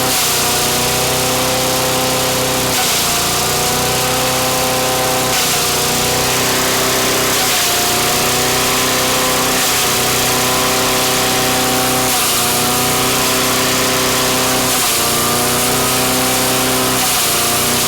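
Craftsman wood chipper-shredder's gas engine running hard, its pitch dipping and recovering every two to three seconds as it bogs under the load of shredding herring into chum.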